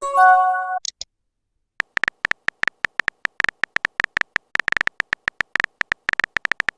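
Text-messaging app sound effects: a short chime of a few steady tones at the start, then after a brief pause a quick, irregular run of phone-keyboard typing clicks.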